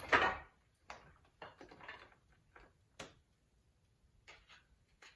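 Steel ice-tool picks and crampon points knocking and scraping on slate rock while drytooling. The sound is a string of irregular sharp clicks and short scrapes, the loudest right at the start.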